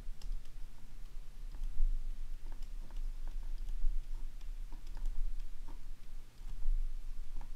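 Irregular light clicks and taps of a stylus on a drawing tablet as a formula is written out by hand, over a steady low electrical hum.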